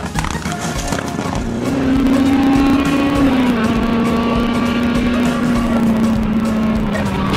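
Rally car engine held at high revs, from inside the cabin: a steady high engine note that sags slowly in pitch over several seconds.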